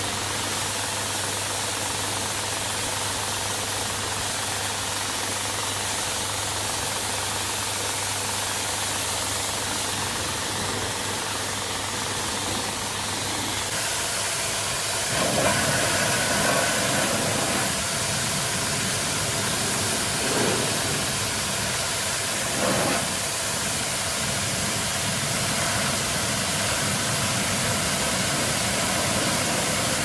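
High-pressure water jet hissing as it sprays onto a motorcycle, driven by a homemade washer pump made from an old refrigerator compressor, with a low steady hum underneath. About halfway through the spray gets louder and rougher, with a few brief surges.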